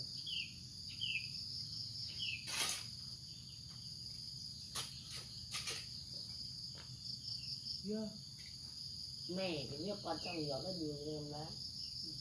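Steady high-pitched chorus of insects, with a few short sharp knocks a couple of seconds in and around the middle from digging in soil and leaf litter.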